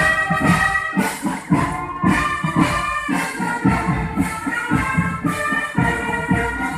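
Marching drum band playing as it marches: brass instruments carry a sustained melody over a steady beat of drums and rattling percussion.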